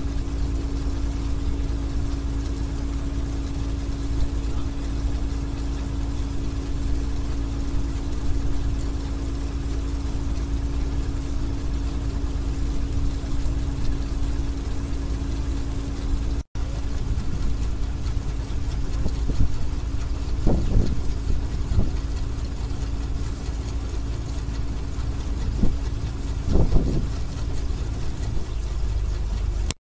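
Rice combine harvester's engine and unloading auger running steadily while unloading paddy into a lorry, with a steady hum over a low rumble. The sound cuts out for an instant about halfway through, and a few brief louder bumps come in the second half.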